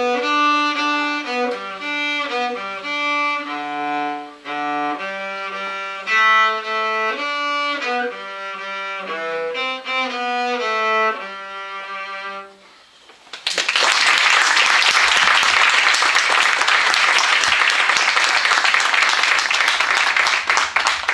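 Cello with digital piano accompaniment playing the closing phrases of a short piece, which ends a little over twelve seconds in. After a brief pause the audience applauds steadily to the end.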